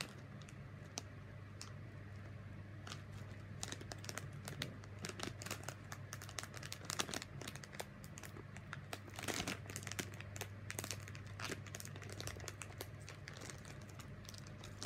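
Plastic BeanBoozled jelly bean packet crinkling and crackling as it is handled, in irregular bursts of rustle.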